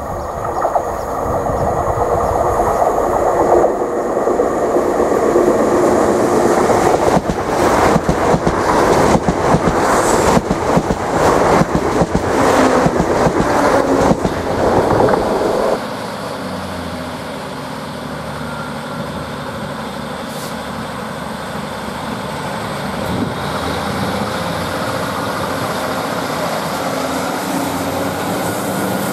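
A ScotRail diesel multiple unit passes close by at speed, its wheels clattering over rail joints, for about the first 16 seconds, then the sound cuts off abruptly. After that comes a quieter, steady drone of a Class 156 Sprinter diesel multiple unit's underfloor diesel engines, rising slightly near the end as the train moves off.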